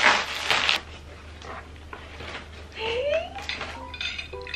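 Scissors cutting open a plastic-wrapped parcel: a loud burst of plastic crinkling in the first second, then quieter rustling as the wrapping is pulled off. A short rising pitched sound comes about three seconds in, and a few short tones near the end.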